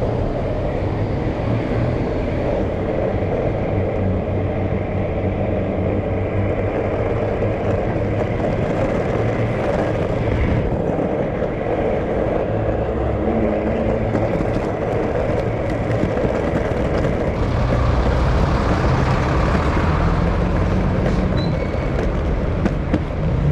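Steady road-traffic rumble from vehicles, low and continuous, growing somewhat louder in the last few seconds.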